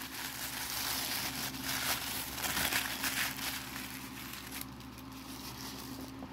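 Tissue packing paper crinkling and rustling as it is handled and unwrapped, loudest around the middle and thinning out in the last second and a half.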